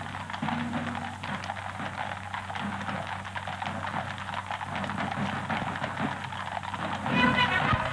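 Horses' hooves clopping on a paved street under the steady hiss, hum and crackle of an early 1930s film soundtrack. About seven seconds in, a marching band starts playing.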